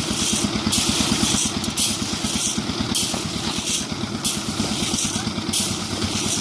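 Concrete mixer machine's engine running steadily at a fast, even beat, with a hiss on top that fades and returns about once a second as the machine works.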